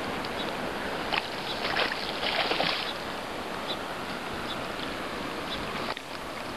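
Steady rush of river water at the bank, with a louder stretch of splashing between about one and three seconds in as a hooked fish is drawn in to the shallows.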